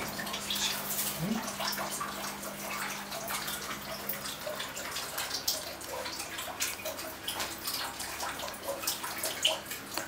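Water splashing and dripping in a pool as an albino alligator is set into it and swims, many small irregular splashes and drips.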